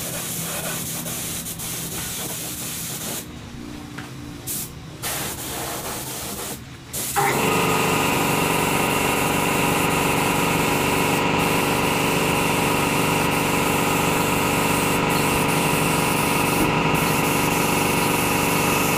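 Gravity-feed paint spray gun hissing as it lays a coat of epoxy primer, the hiss breaking off briefly several times as the trigger is released. About seven seconds in, a louder steady motor hum starts and stays on under the hiss.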